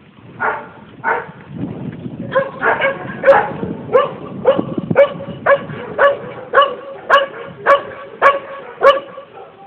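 Black Labrador retriever search-and-rescue dog barking over and over in a steady run, about two barks a second. This is the kind of repeated barking a rescue dog uses as an alert after a search command, when it has found the hidden person.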